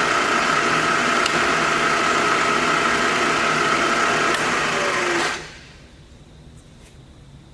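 Webb/SWI 3VH ProtoTrak vertical milling machine running with a steady high whine, then switched off a little past five seconds in, dropping in pitch as it stops.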